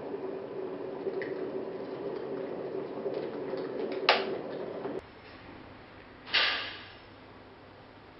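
White electric kettle heating water near the boil: a steady rumbling hiss with a low hum, and a sharp click about four seconds in. The sound cuts out abruptly about a second later, and a brief noisy rush, the loudest thing after the cut, follows.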